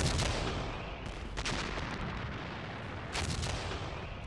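Artillery field gun firing three heavy shots, spaced about one and a half to two seconds apart, each trailing off into a long rumble.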